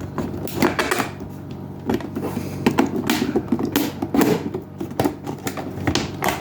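Plastic housing of a Keurig K-Supreme coffee maker clicking and creaking in irregular bursts as its snap-together back panel is pried loose by hand, its clips popping free.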